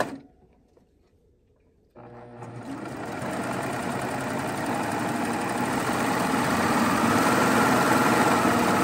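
Babylock Triumph serger quiet at first, then starting up about two seconds in and stitching a seam. It grows steadily louder over several seconds as it speeds up, its cutter shaving the fabric edge.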